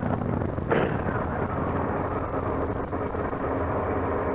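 Yamaha R6 sport bike's inline-four engine running steadily while riding, under heavy wind noise on a helmet-mounted mic. A single sharp pop or knock a little under a second in.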